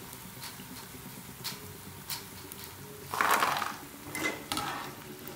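Wire-mesh skimmer handling fried chana dal pakoras: a few light sharp taps against the pan and plate, then a short clatter about three seconds in as a load of crisp pakoras is tipped off the skimmer onto the plate.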